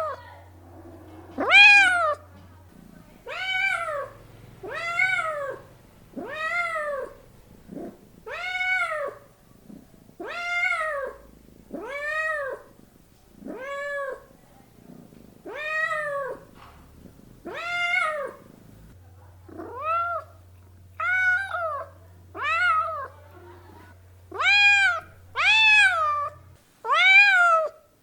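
A domestic cat meowing over and over, about one meow a second, each call rising then falling in pitch; the last few meows near the end are louder.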